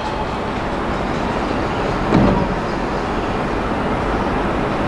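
Sliding passenger doors of an Odakyu 3000 series commuter train closing, with a short thud about two seconds in, over a steady background rumble from the train.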